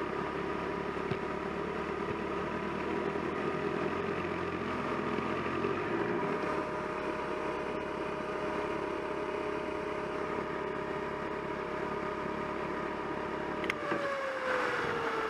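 Touring motorcycle engine running at low speed as the bike rolls slowly over gravel; near the end one tone in its note falls in pitch.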